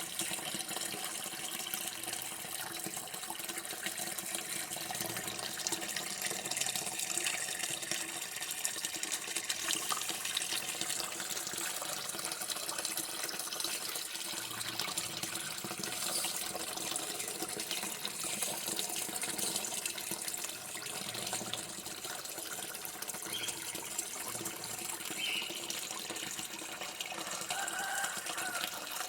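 Running water flowing in a steady, continuous stream.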